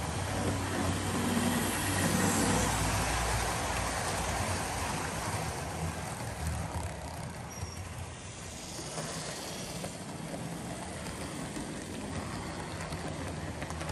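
OO gauge model trains running along the layout track: a steady electric motor hum with the rumble and clatter of small wheels on the rails, a little louder in the first few seconds.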